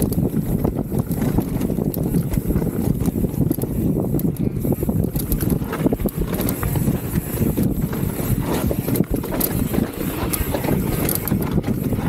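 Salsa Cassidy full-suspension mountain bike running down a rough trail: a steady low rumble of tyres and wind buffeting the microphone, with frequent small rattles and clatters from the bike throughout.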